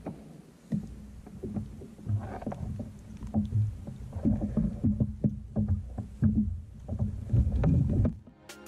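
Irregular knocks and clatter of handling aboard a plastic sit-on fishing kayak, with water slapping the hull. Background music comes in near the end.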